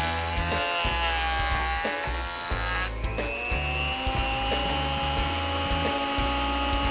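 Small benchtop jointer's electric motor and cutterhead running with a high whine. Its pitch sags in the first seconds, breaks off briefly about three seconds in, then comes back and holds steady. Background music with a steady beat plays under it.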